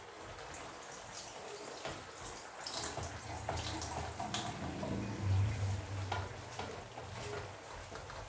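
Wooden spatula stirring a brothy simmering pechay-and-tofu sauté in a metal wok: liquid sloshing, with scattered light scrapes and taps against the pan.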